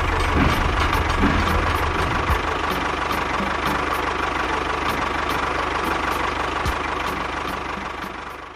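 A machine's motor running steadily, with a low hum and a rattling noise, fading out near the end.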